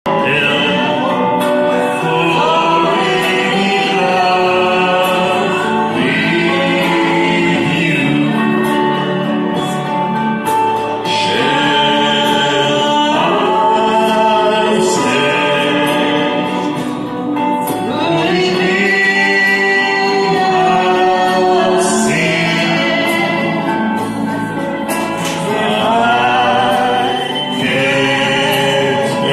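A man and a woman singing a song together into microphones, amplified through a portable speaker over a karaoke-style backing track.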